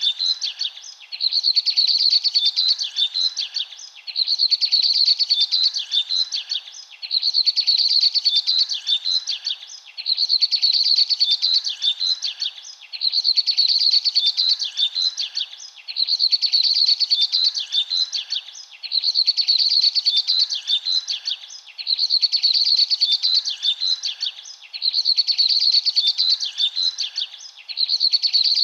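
Bird song: a rapid, high chirping phrase about two seconds long, repeated the same way about every three seconds, some ten times over, with a faint steady background hiss underneath.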